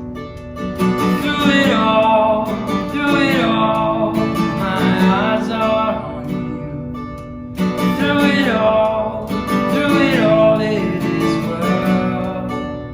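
Worship band music led by a strummed acoustic guitar, with a melody rising and falling over it in two phrases.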